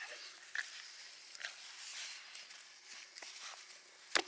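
Puppies close to the microphone making a couple of short high squeaks over light rustling, with one sharp knock near the end.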